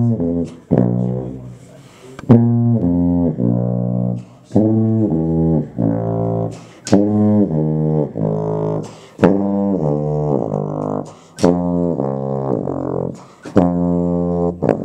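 Sousaphone played solo: a series of short phrases of low, sustained notes that step up and down in pitch, with brief pauses between phrases.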